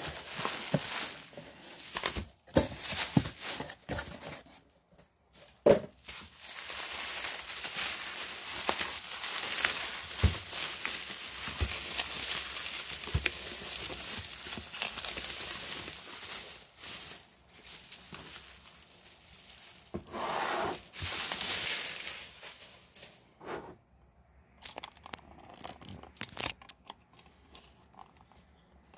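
Bubble wrap crinkling and rustling as it is handled and pulled open, with scattered sharp crackles and knocks. It is loudest through the middle and dies down near the end.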